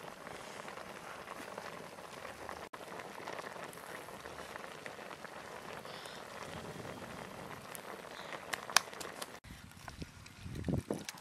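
Water boiling hard in a wok with a whole fish in it: a steady bubbling hiss, with a few sharp crackles toward the end. The sound cuts off abruptly about nine and a half seconds in, leaving a quieter stretch with a couple of low knocks.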